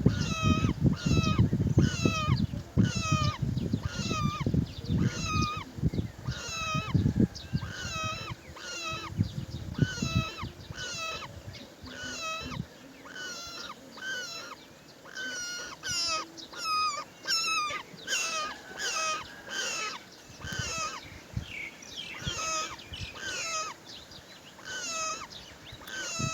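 Roller calling over and over, a harsh call repeated about one and a half times a second. A low rumble runs under the calls for the first ten seconds or so.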